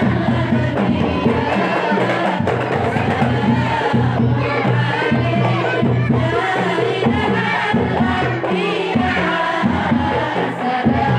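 Hadrami-style qasidah music: voices singing a devotional Arabic song over a steady beat of hand drums.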